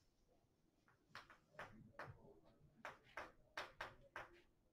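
Faint, irregular short swishing strokes of an eraser wiping chalk off a chalkboard, about eight to ten swipes.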